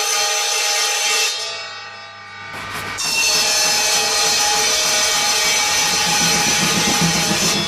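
O-gauge model sawmill machinery running: a steady saw whine of several fixed tones over a hiss. It fades away about a second and a half in and starts up again about three seconds in.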